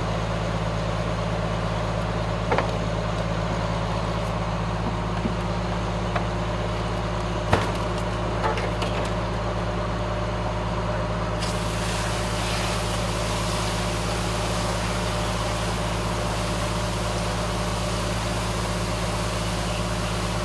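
A fire engine's diesel engine runs with a steady, unchanging drone, with a few sharp knocks and clanks in the first half. A brighter hiss joins about halfway through and continues.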